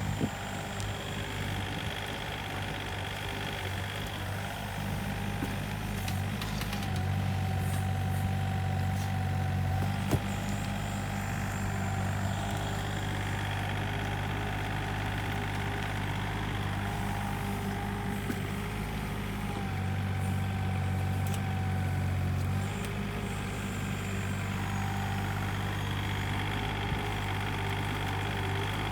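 Komatsu PC28UU-2 mini excavator's diesel engine running steadily while it digs, with a wavering whine above the engine note. The engine note gets heavier twice under load, and there are a couple of sharp knocks.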